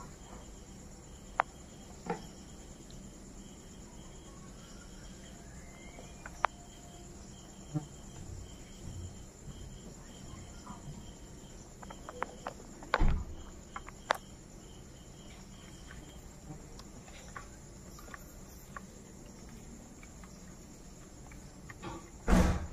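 Crickets chirping in a steady, high-pitched drone, with scattered soft clicks and two louder thumps, one about halfway through and one near the end.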